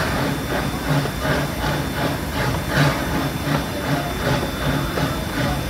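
Steam locomotive pulling the train, its exhaust chuffing in a steady rhythm over a hiss of steam and wheels rolling on the rails.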